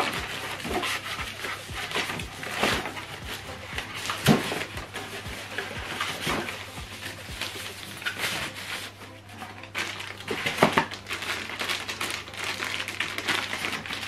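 Plastic bag and foam-sheet packaging rustling and crinkling as a small speaker is unwrapped by hand, with a louder crackle or light knock every second or two.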